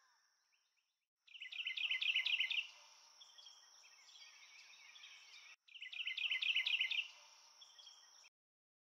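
Songbird singing a quick run of chirps, twice, a few seconds apart, over a steady high insect buzz; the sound cuts off suddenly near the end.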